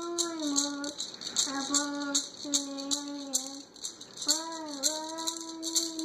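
Young boy singing a bird song solo in held, wavering phrases with short breaks, keeping time by shaking a toy maraca about three times a second.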